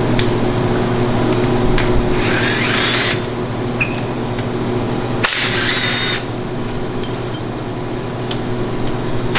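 A handheld power tool run in two short bursts of about a second each, with a high whine that rises as it spins up, backing out bolts during an engine teardown. A steady shop hum runs underneath.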